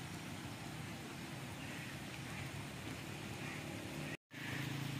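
Steady outdoor hiss of light rain on a wet road, with a low steady drone underneath. The sound cuts out for an instant about four seconds in at an edit, and the drone comes back steadier.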